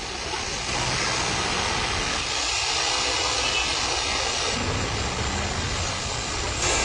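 Artificial snow machine blowing: a steady rushing noise like a jet engine that gets louder about a second in and again near the end.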